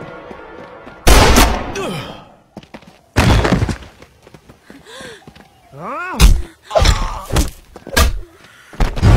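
Film fight sound effects: a run of heavy body-blow thuds and impacts as a man is tackled and thrown to the ground, about seven hits spaced irregularly. Short gliding grunts come near the middle.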